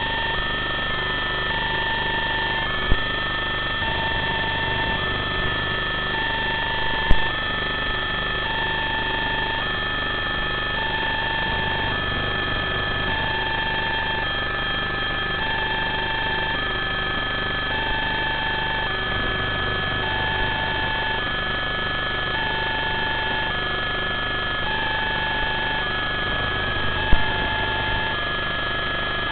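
Electronic two-tone alarm beeping, a lower and a higher beep alternating about once a second, over a steady high-pitched electronic whine. A few sharp clicks come through, the clearest about 7 s in and near the end.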